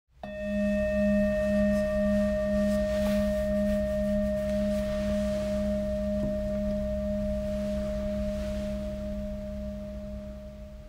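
Singing bowl struck once and left ringing. A low tone pulses with a slow warble about twice a second under a clear higher ring and fainter overtones, fading gradually.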